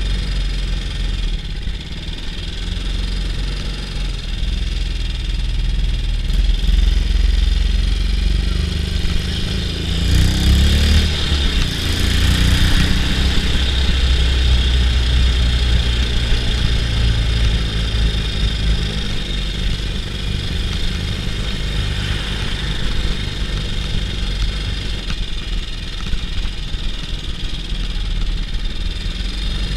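BSA C15 Star motorcycle's 250 cc single-cylinder four-stroke engine running under way on the road. The engine note climbs and gets louder about ten seconds in as the bike accelerates, then settles back to a steady run.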